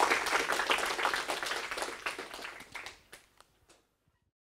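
Audience applauding, thinning out to a few scattered claps and stopping about four seconds in.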